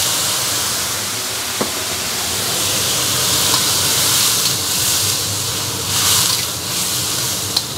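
Hot water just poured into a very hot wok of stir-fried pork belly and green beans, hissing and sizzling steadily as it boils up in a cloud of steam. A metal spatula stirs and scrapes the wok now and then.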